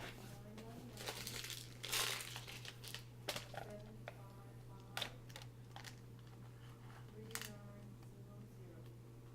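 Plastic packaging crinkling, with a longer rustle about two seconds in and scattered small clicks and knocks as laptop repair parts are handled.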